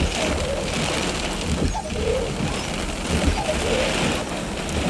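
Wind-driven rain beating on a car, heard from inside, with a low, gusting rumble of wind buffeting the car during a severe thunderstorm's gust front.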